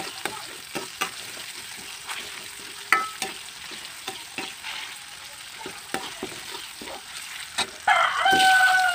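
Steel ladle stirring sliced tomatoes and shallots frying in oil in a wok: frequent clicks and scrapes of the ladle against the pan over a light sizzle. Near the end a rooster crows, a loud held call of about a second.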